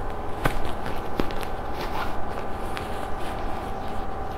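Denim jeans being handled, with cloth rustling and a few light clicks, over a steady background hum.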